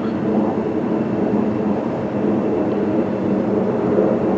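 Jet aircraft passing overhead, a steady engine noise slowly growing louder.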